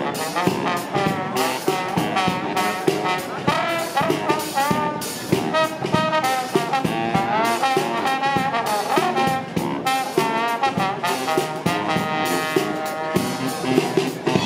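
Brass music: trombones and trumpets playing a melody over a steady drumbeat.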